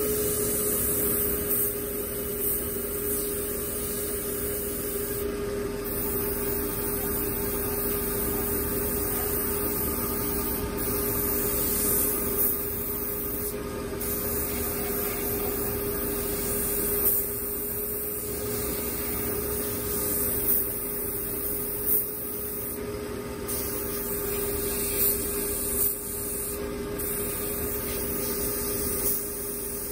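Airbrush hissing as paint is sprayed, pausing briefly now and then when the trigger is let off, over a steady hum.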